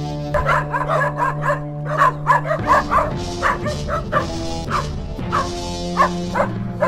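Dogs barking again and again, sharp short barks coming more than once a second, over background music with steady held notes.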